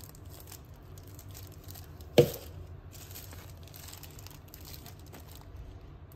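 Thin plastic packaging bag crinkling as it is handled and pulled back from a Magic Bullet blender cup, with one sharp knock about two seconds in.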